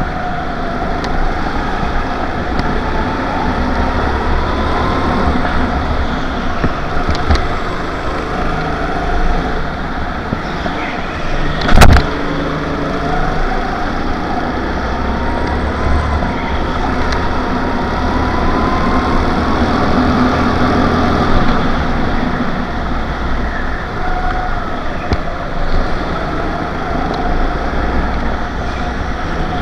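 Go-kart motor heard from a camera mounted on the kart, driven hard in a race, its pitch rising and falling with the throttle. One sharp knock about twelve seconds in.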